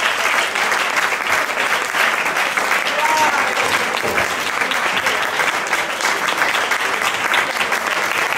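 Audience applauding steadily, a dense patter of many hands clapping, with a few voices calling out over it.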